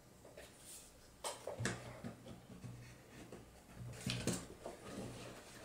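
Plastic drone body knocking and scraping against the foam insert of its hard-shell carrying case as it is pressed into place. There are a few soft knocks and rubs, the loudest about a second and a half in and again about four seconds in.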